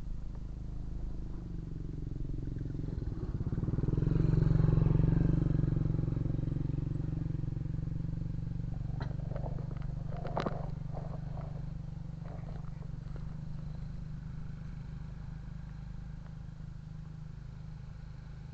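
Engine of a passing motor vehicle, a steady low hum that grows to its loudest about five seconds in and then slowly fades away. A few sharp clicks sound about ten seconds in.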